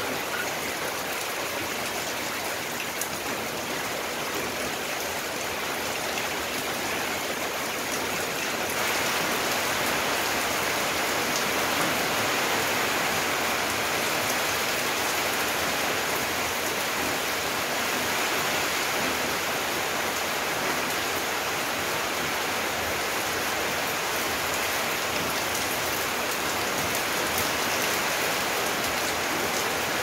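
Rain falling steadily on garden foliage and a wet paved yard, an even hiss that grows a little louder about nine seconds in.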